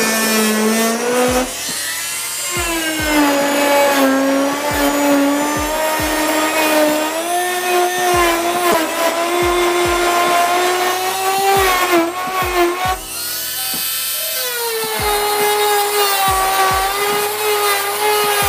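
Pigeon G561 cordless oscillating multi-tool running, a steady high motor whine. Its pitch drops about two and a half seconds in and rises again near the end.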